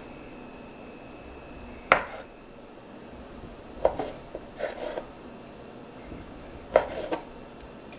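Chef's knife slicing through smoked sausage and knocking on a wooden cutting board. There are several separate cuts, the loudest about two seconds in, then small clusters of knocks near the middle and near the end.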